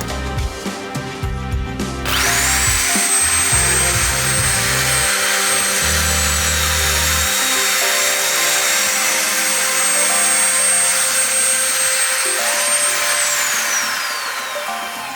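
Hand-held power drill spinning up about two seconds in, then running at constant full speed with a high, steady whine while drilling a hole in an aluminium pulley. Near the end the whine falls away as the drill winds down. Background music plays throughout.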